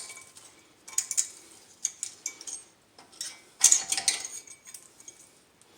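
Brake pad hardware clip being pushed and pried off a front brake caliper bracket: a series of short metallic clicks and scrapes, busiest about two-thirds of the way through.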